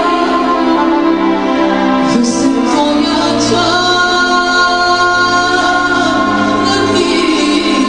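A woman singing a Romanian Christian song into a handheld microphone, with instrumental accompaniment and long held notes.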